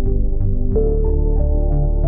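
Calm ambient synthesizer background music: sustained notes over a light tick about four times a second, with the harmony shifting under a second in.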